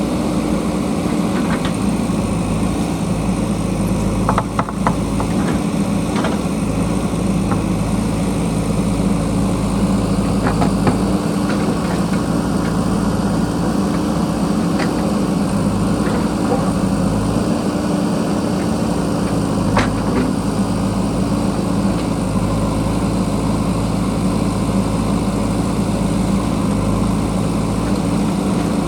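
JCB backhoe loader's diesel engine running steadily while it digs at a large buried rock, with a few short sharp knocks of the bucket against rock, the clearest about four and a half and twenty seconds in.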